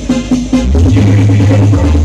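Loud electronic dance music blasting from a huge carnival competition sound system, with a long, held, very deep bass note coming in under a melody line less than a second in.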